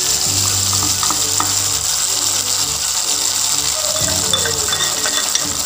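Hot coconut-oil tempering with fried shallots and curry leaves giving a steady sizzle as it is poured into the prawn curry.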